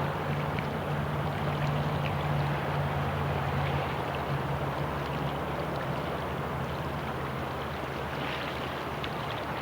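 Steady rush of the Arkansas River's flowing water, an even noise with a low steady hum underneath and a few faint ticks near the end.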